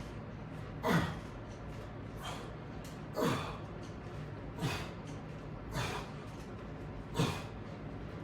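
A person breathing hard during a resistance-band exercise: six short, forceful exhalations, about one every second and a quarter, in time with the repetitions.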